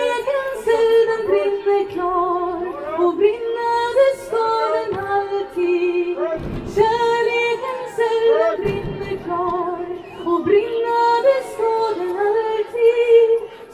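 A woman singing solo, long held notes with vibrato that glide between pitches.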